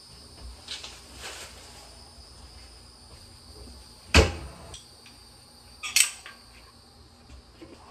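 Cabinet doors and dishware knocking as a kitchen cabinet is emptied: light rustles and clinks in the first second and a half, then two sharp knocks about two seconds apart, the first the loudest.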